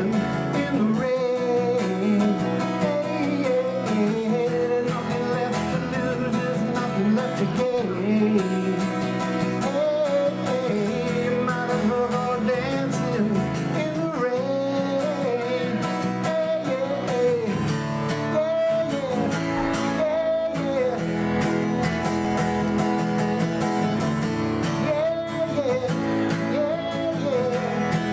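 A man singing a slow song while strumming an acoustic guitar, a live solo performance. The sung melody runs steadily over sustained chords.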